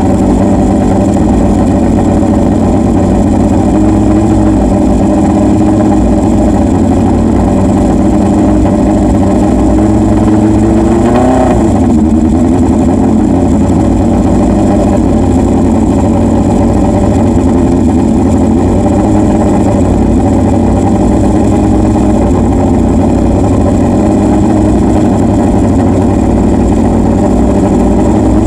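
Air-cooled Honda four-cylinder racing motorcycle engine warming up at a steady, loud idle, with one short blip of the throttle about eleven seconds in.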